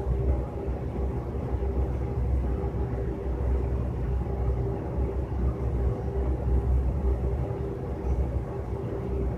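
Steady low rumble with a constant mechanical hum of fixed tones, typical of a building's ventilation system running.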